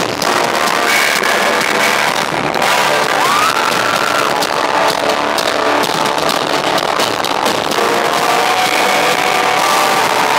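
Heavy metal band playing live through a concert PA, with distorted electric guitars and pounding drums, recorded loud and harsh on a phone in the crowd.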